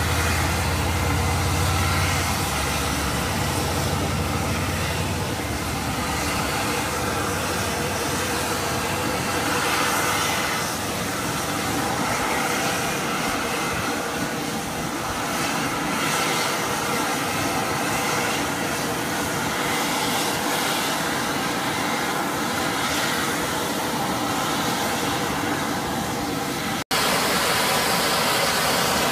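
Geothermal steam vent in a crusted hot-spring crater hissing and rushing steadily, with a deeper rumble in the first few seconds. The sound drops out for an instant near the end.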